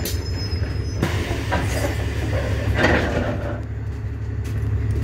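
Alexander Dennis Enviro400 MMC double-decker bus heard from inside as it draws up at a stop: a steady low engine and driveline hum, with short hisses about two and three seconds in from the air brakes and doors.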